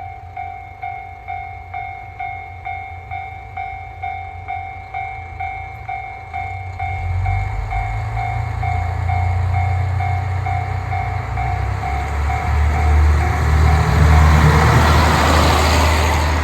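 Railway level-crossing alarm ringing its two-tone ding about twice a second while a train approaches. The train's rumble builds from about six seconds in, drowns out the alarm, and passes loudest about 14 s in.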